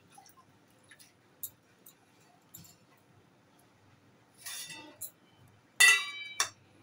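Steel kitchenware clinking: a short scrape, then a loud metallic clink with a brief ring about six seconds in and a smaller knock just after. Faint handling ticks before it.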